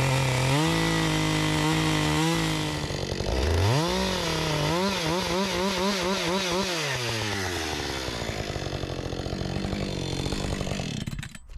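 Gas chainsaw cutting through a thick wooden fish carving to thin it down. The engine holds steady, revs up sharply a few seconds in, its pitch wavering quickly as the chain bites, then drops back and stops near the end.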